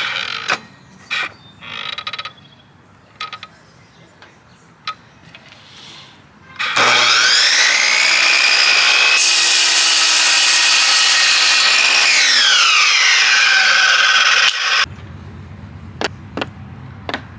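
A few light handling knocks and clicks. About seven seconds in, an old electric miter saw's motor spins up with a rising whine and runs loud and steady through a cut in a pine board. It then winds down with a falling whine and stops abruptly.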